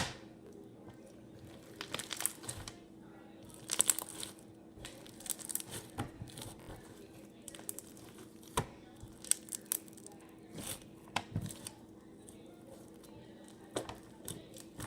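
Slime being squeezed and stretched by hand, giving irregular crinkly, crackling pops that come in scattered short bursts, after one sharp click at the very start. A faint steady hum runs underneath.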